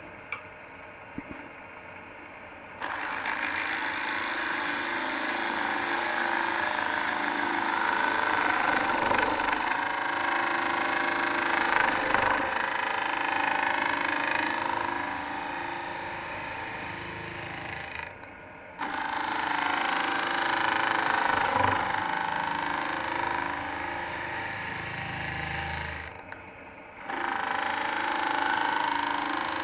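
Robert Sorby ring tool cutting into green end-grain wood spinning on a lathe: a steady rasping, hissing cut that comes in three long passes. Between the passes there are short breaks where only the lathe's quieter running is heard.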